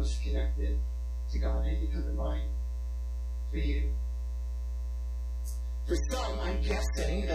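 Steady low electrical mains hum under a man's speech, which comes in short phrases with pauses between them.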